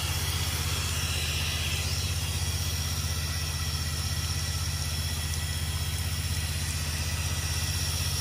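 Pressure washer's gas engine and pump running steadily, with the hiss of the wand spraying soap solution at the house.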